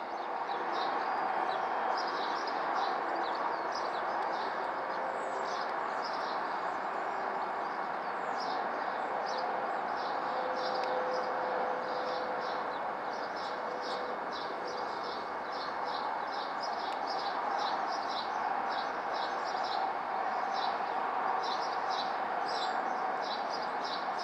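A bird chirping over and over in short high notes, about two a second, over a steady background roar like distant traffic.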